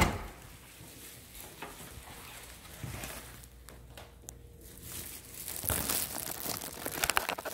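A wooden door shuts with a sharp thump right at the start, in a small room. Scattered rustling and soft knocks follow, picking up again near the end.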